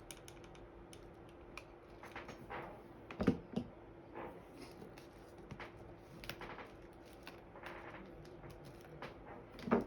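Small irregular clicks and taps of hand-handling a glue gun and cardstock pieces while hot glue is applied, with one louder knock about three seconds in. A faint steady hum lies underneath.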